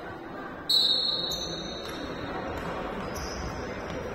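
A referee's whistle blown once, a loud, steady, high blast starting a little under a second in and lasting about a second, over the noise of play in a sports hall.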